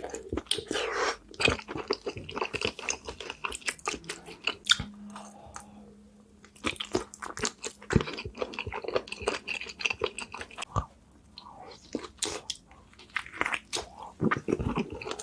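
Close-up chewing and biting of spicy seafood boil with crunching and many small clicks, pausing briefly twice.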